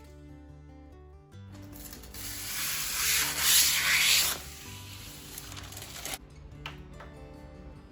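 A rubbing, hissing noise over background music: it starts about a second and a half in, grows loudest, drops suddenly, and stops about six seconds in.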